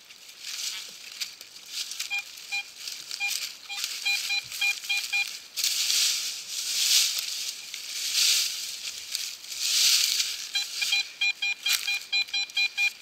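Handheld metal-detecting pinpointer sounding a run of short beeps that come quicker as it closes on a small metal target in the soil, then a second run of rapid beeps near the end. In between, dry leaves and crumbling earth rustle as the soil is broken up by hand.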